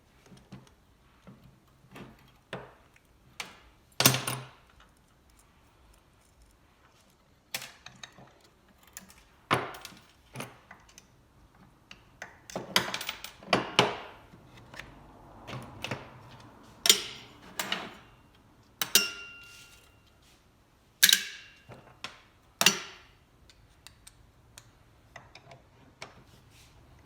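Starter motor parts and tools being handled during a repair: irregular clicks and knocks of metal on metal, several of them loud. One brings a brief ringing tone from a struck metal part.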